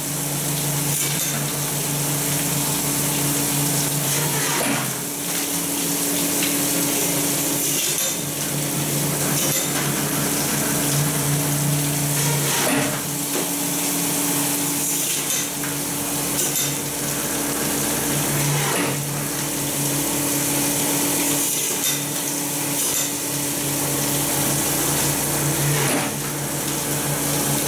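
AGK fish filleting machine running with a steady motor hum, under the hiss of water spraying over its blade, with occasional metallic knocks and clatter as fish go through.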